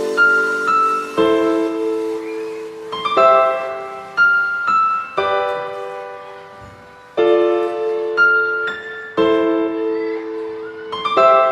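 Background music: slow solo piano, single notes and chords struck every second or two and left to ring out.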